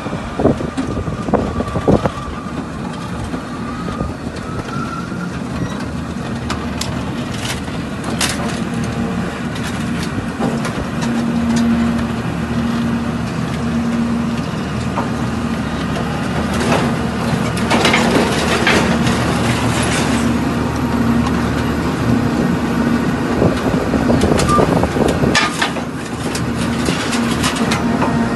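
Hydraulic scrap metal baler at work: a steady hum from its hydraulic power unit, with scrap metal cracking and crunching in several bursts as it is pressed into a bale.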